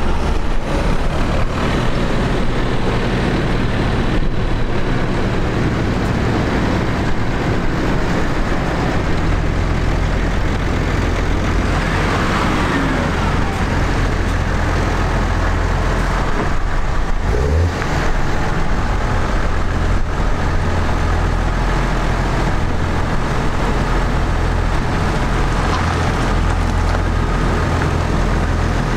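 Tractors' diesel engines running steadily as they drive past on the road, with a falling pitch about twelve seconds in as one goes by and a short rise in engine note a few seconds later.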